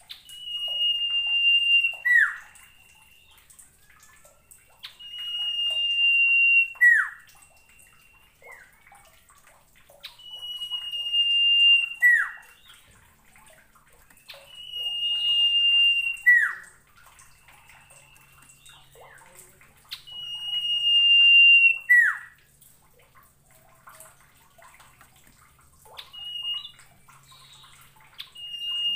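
Common iora singing: a long level whistle that swells in loudness and ends in a quick downward slur, repeated about six times, roughly every five seconds.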